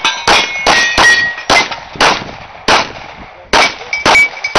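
Semi-automatic pistol shots fired in a rapid string, roughly two a second, with a short pause before a quick pair of shots near the end. After some shots there is a brief metallic ringing, typical of steel targets being hit.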